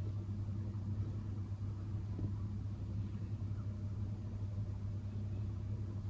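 A steady low hum, with no clear cat chattering or other distinct sound above it.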